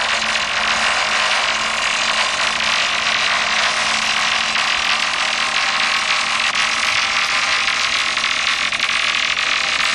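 Logging skyline yarder's engine running steadily under load as it hauls a crawler dozer slung beneath the carriage along the skyline. The pitch creeps up slightly near the end.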